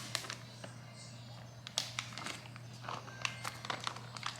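Quiet kitchen handling noise: scattered light clicks and taps over a steady low hum.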